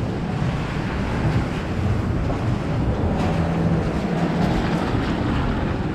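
Steady rushing noise of heavy rain with wind buffeting the microphone; a low held tone sounds for a couple of seconds in the middle.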